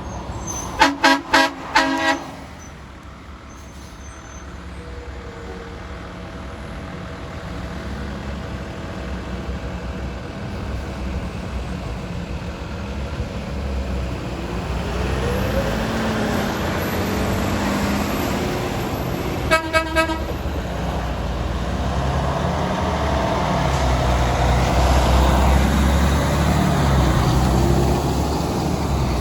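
Big truck horn honking in four quick, loud blasts about a second in, then three shorter, quieter blasts about twenty seconds in. Truck engine and traffic rumble building up through the second half.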